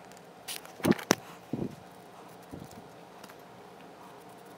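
A few light clicks and knocks from small hand tools and a plastic cup of model railroad ballast being handled. Two sharp ones come close together about a second in, a softer one follows just after, and a faint tap comes later.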